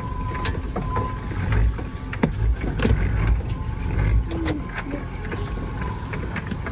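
Wind buffeting the microphone on an open aluminium boat, with scattered knocks and clatter of rope and gear as a crab pot line is hauled up over the side by hand. A faint steady high whine runs underneath.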